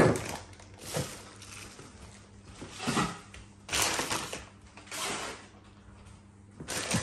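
Plastic packaging and a plastic courier satchel rustling and crinkling as they are handled and pushed aside, in several short bursts with quieter pauses between.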